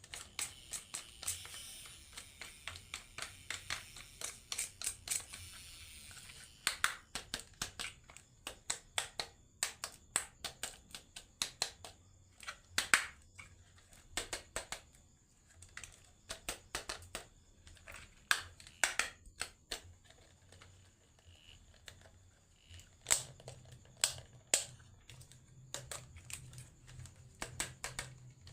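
Marbles rolling and clacking down a HABA wooden marble run: many irregular sharp clicks and knocks as they drop from piece to piece, with a rolling rush under them for the first several seconds.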